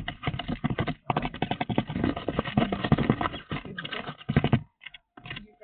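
Pet birds' bills clicking and tapping rapidly and irregularly close to the microphone, a dense run of small knocks that stops about three-quarters of a second before the end.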